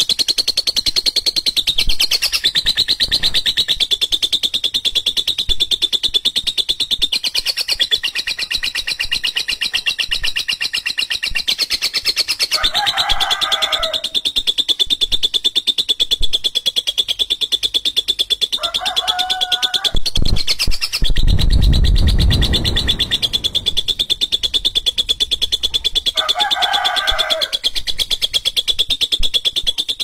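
Lovebird's ngekek: a long, unbroken, harsh rapid chatter, with three short lower calls breaking in. A low rumble about two-thirds of the way through.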